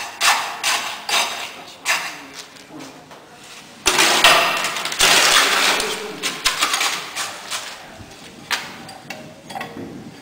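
Steel tamping rod rodding a layer of fresh concrete in the metal cone of a Vee-Bee consistometer, knocking about two to three times a second. About four seconds in comes a louder stretch of scraping and rattling of metal and concrete, and further knocks follow near the end.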